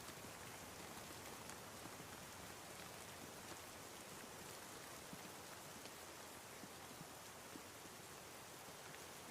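Soft, steady rain falling: an even patter with scattered faint drop ticks.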